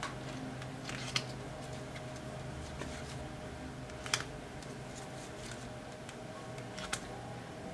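Tarot cards being drawn and laid down on a wooden desk: a few light taps and clicks, the sharpest about four seconds in, over a steady low hum.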